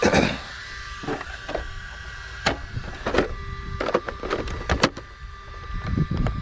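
Traxxas Rustler VXL RC truck's brushless electric motor whirring in short spurts as it drives, with scattered sharp clicks and knocks from the truck.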